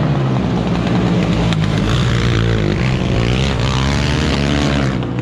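Racing quad bikes' engines buzzing as they ride past, the pitch rising and falling through the middle as they rev and shift.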